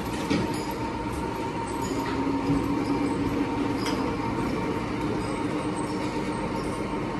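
Crane running steadily while lifting a transformer off a truck: a continuous mechanical drone with a few steady tones and a few light clicks.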